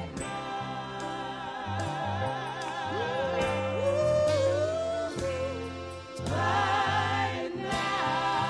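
Live soul music: lead and backing vocals with vibrato over a bass line, the voices swelling fuller and louder after a brief drop about six seconds in.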